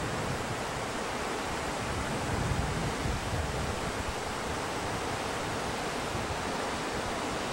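Whitewater rapids rushing steadily over rocks: an even, unbroken noise of fast, broken water.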